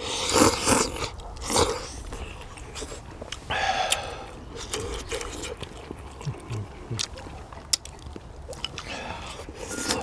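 Close-up eating sounds: slurping and chewing mouthfuls of spicy braised chicken with dried radish greens, with a few loud slurps in the first two seconds, then steady chewing and light clicks of chopsticks.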